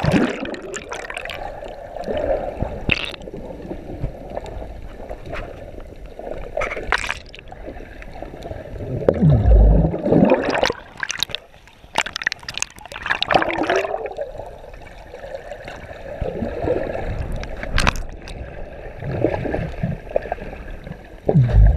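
Water gurgling and sloshing around a camera held underwater while snorkeling, with bursts of bubbles and splashing. It swells and fades unevenly, loudest about halfway through and near the end.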